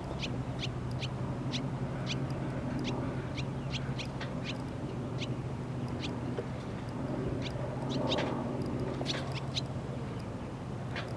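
A flock of swallows chirping: many short, high chirps at uneven intervals, over a steady low hum.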